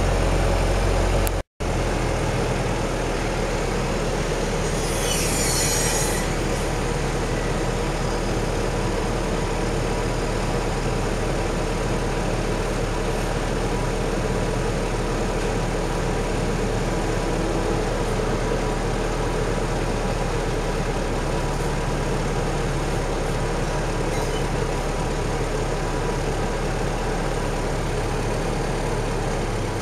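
Engine of the 1981 GDR-built passenger ferry running steadily underway, an even, loud drone heard from the bow deck. The sound drops out for a split second about one and a half seconds in.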